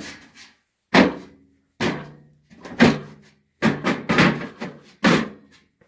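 Sheet-steel drawers of a vintage Union tool box being slid in and out and pushed shut: a series of sharp metal clunks about one a second, each with a short ringing tail.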